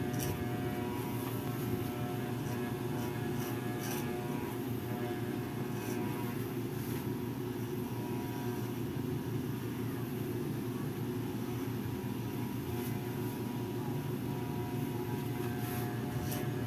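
Electric hair clippers running steadily, their motor buzzing close by as they cut along the side and back of the head.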